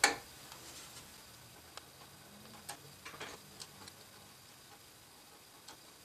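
A sharp click, then a few faint, scattered clicks and taps as hands work loose the metal mounting brackets of a Noctua CPU cooler on the motherboard.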